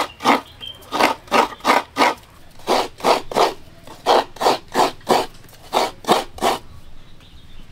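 Half a coconut being scraped against a coconut grater's serrated blade. Rhythmic rasping strokes come in runs of three or four, roughly three a second, and stop about a second before the end.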